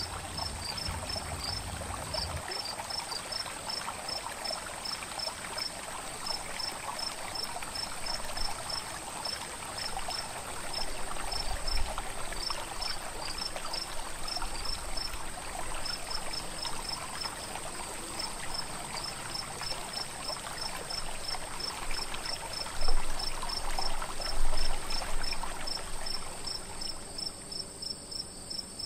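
Night insect chorus: crickets chirping in quick runs of short, high chirps over a steady high-pitched insect drone, with an even hiss beneath. Two louder bumps come about 23 and 25 seconds in.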